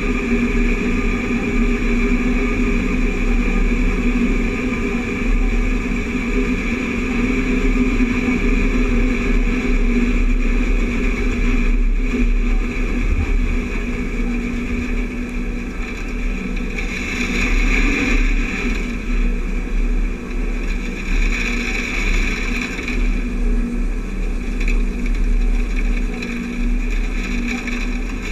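Steady drone of harvest machinery: a John Deere S-series combine running alongside while its unloading auger pours grain into the grain cart, over the tractor pulling the cart, with a constant low rumble.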